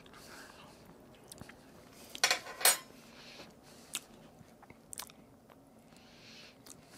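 Forks clinking and scraping against a cast-iron pan while people eat. There is a loud cluster of clicks a little over two seconds in, then a few single clicks.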